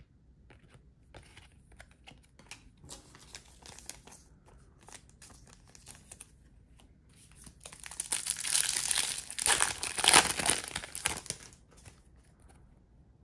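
Scattered light clicks of trading cards being handled, then from about eight seconds in a 2022 Bowman University Chrome card pack's wrapper torn open and crinkled for a few seconds.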